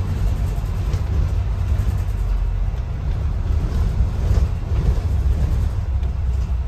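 A double-decker bus driving along a street, heard from inside on the upper deck: a steady deep rumble of engine and road noise.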